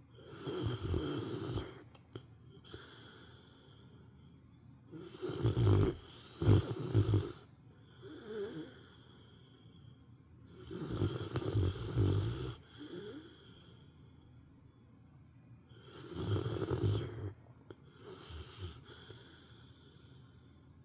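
Sleeping Rottweiler snoring like an old man: four snores about every five to six seconds, each followed by a fainter breath.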